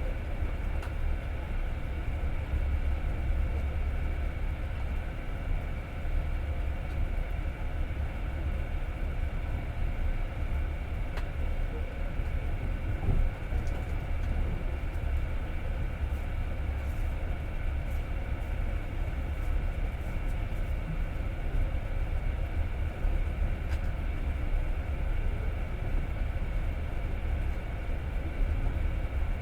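Passenger train running along the track: a steady low rumble of wheels on rails, with a few faint clicks.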